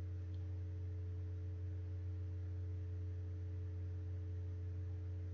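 Steady low hum with a few fainter steady tones above it, unchanging throughout: the background noise of the recording.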